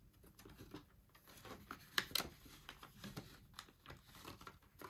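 Clear plastic pockets of a ring binder crinkling and rustling as paper bills are handled and a pocket page is turned, with many small sharp clicks; the loudest comes about two seconds in.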